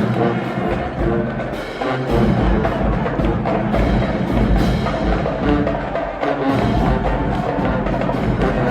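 Music with busy, sharp percussive hits over sustained pitched notes; a heavy bass comes in about two seconds in.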